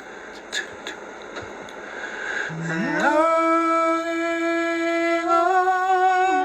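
A man's voice singing a long wordless held note, a cappella: it slides up into the note about three seconds in, holds it steadily and steps up slightly near the end, after a few faint clicks.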